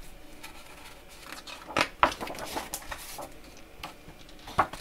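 Paper rustling and swishing as a large page of a hardcover picture book is turned by hand, with a few short clicks of the page and cover, the loudest about two seconds in and again near the end.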